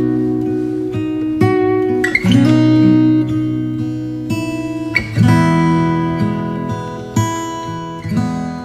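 Background music of strummed acoustic guitar chords, each chord struck and left to ring and fade before the next.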